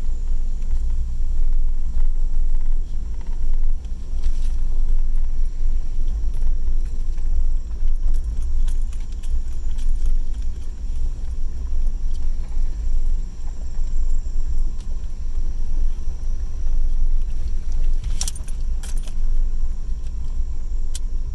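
Vehicle interior on a rough dirt track: a steady low rumble of engine and tyres, with light rattles and clicks from the cabin and a short cluster of sharper rattles about 18 seconds in.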